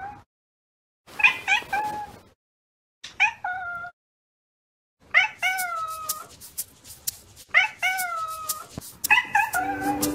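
Domestic cat meowing in short phrases of several quick notes, each note stepping down in pitch, with abrupt silences between phrases. From about halfway a light ticking comes in under the meows, and steady notes join near the end.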